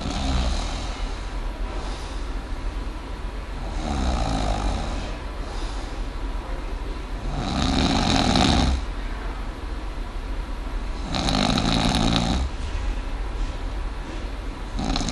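A person snoring: five rasping snores, one about every four seconds, the two in the middle of the run the loudest. The snoring comes from the side walls of the throat (lateral pharyngeal walls) vibrating.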